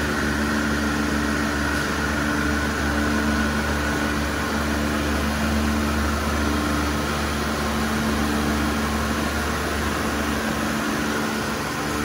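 Electric pressure washer running on a performance test bench: a steady motor and pump hum with a few steady tones over it.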